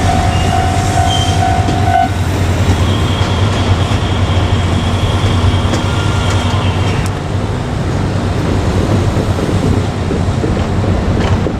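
JR Kyushu KiHa 200 diesel railcar running past with a steady low rumble of engine and wheels. A steady high tone sounds for the first two seconds, then a thin high squeal runs for a few seconds, with a few clicks of wheels over rail joints.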